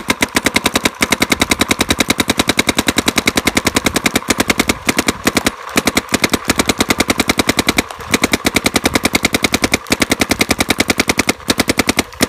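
Planet Eclipse Geo 2 paintball marker firing in fast rapid-fire strings of sharp pops, about a dozen shots a second, broken by a few short pauses. The shooting is part of an efficiency test, with the air tank down to a little under 1,000 psi.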